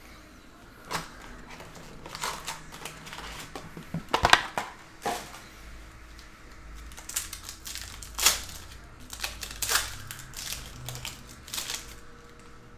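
Upper Deck Trilogy hockey card box and its wrapped packs being handled and opened: packaging crinkling, with scattered sharp crackles. The loudest crackles cluster about four seconds in, and another strong one comes a little after eight seconds.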